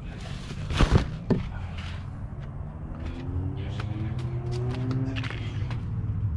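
Motor oil being poured from a bottle into the motorcycle engine's oil filler hole, the pouring tone slowly rising in pitch as it goes, over a steady low hum. A couple of knocks from handling the bottle come about a second in.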